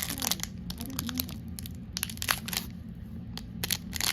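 Foil Pokémon booster pack wrapper crinkling and tearing as it is opened by hand: quick irregular crackles, over a steady low hum.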